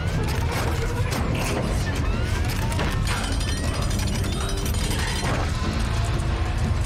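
Movie transformation sound effect of Optimus Prime shifting into his semi-truck form: dense rapid mechanical clicking and ratcheting with short rising whirs, as metal parts slide and lock into place, over a deep rumble.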